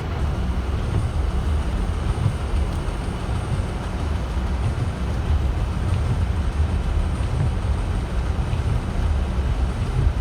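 Steady low road rumble of a car driving, heard from inside the cabin, without a break.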